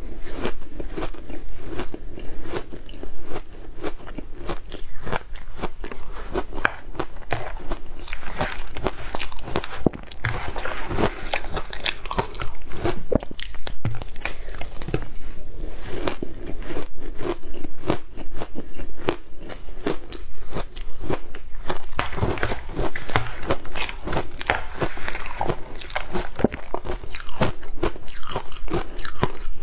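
A person biting and chewing ice: a dense, continuous run of crunches.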